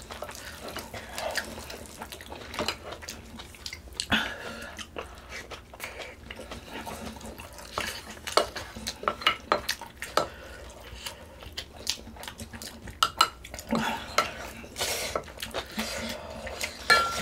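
Eating utensils clinking, tapping and scraping against dishes in irregular bursts, busiest a little past halfway and near the end.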